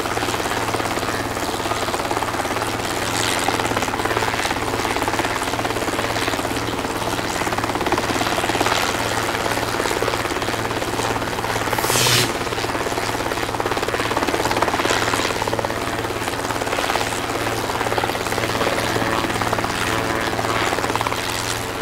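Wind rushing over the microphone while riding a Zeus electric scooter at speed, over a steady low hum. Louder gusts come about three and twelve seconds in.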